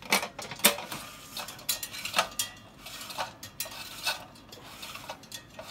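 Irregular metal clicks and scrapes as the chimney and top assembly of a Haller Saffire kerosene heater is twisted and screwed back onto its base.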